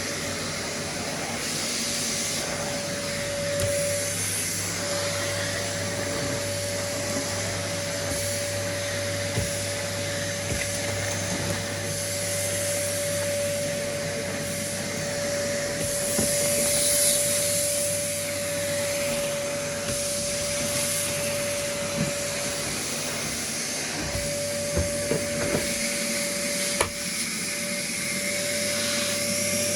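Numatic Henry HVR200 1100-watt canister vacuum cleaner running steadily with a constant motor whine over airflow hiss. The hiss swells briefly as it sucks up debris, and a few sharp clicks come near the end.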